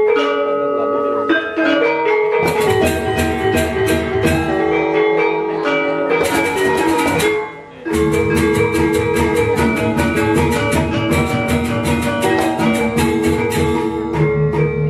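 Balinese gamelan selonding ensemble playing: iron-keyed metallophones ringing in quick, many-note patterns. The music drops away briefly about seven and a half seconds in, then starts up again.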